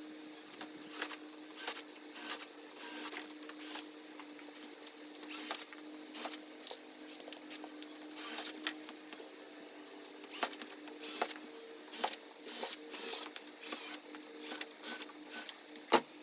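Short rasping strokes on pine boards, coming about one to two a second in irregular runs, over a faint steady hum.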